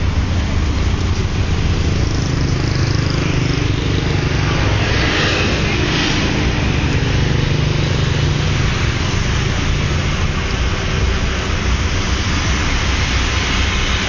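Steady low rumble of car engines running as a convoy of cars queues and creeps along.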